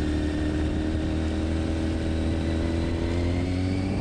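Honda CBR1000RR sportbike's inline-four engine running steadily while riding at a cruise, its pitch easing slightly lower and then rising a little near the end.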